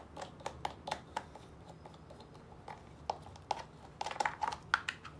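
Scattered light clicks and taps of hands working the air cleaner cover off a small two-stroke scooter engine, with a quick run of clicks near the end.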